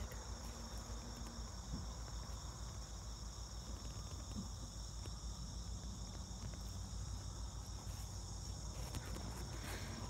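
Steady high-pitched chorus of insects such as crickets, unbroken throughout, over a low steady hum.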